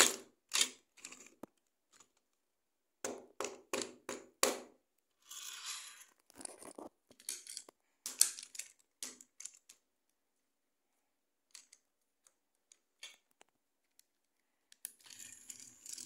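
Plastic toy train cars handled on plastic sectional track: a run of sharp clicks, knocks and short scrapes, then several seconds of near quiet, and a soft scraping hiss near the end.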